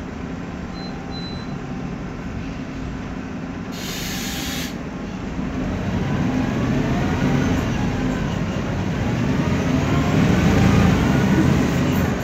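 Interior running noise of a MAN Lion's Classic CNG city bus with a ZF Ecomat automatic gearbox: a steady low drone that grows louder from about halfway, with a whine rising and falling in pitch, the differential whine the uploader calls noisy. A short air hiss about four seconds in.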